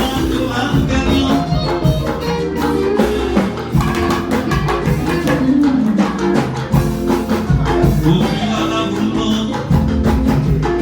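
Church anthem music: singing over a steady beat of drums and hand percussion.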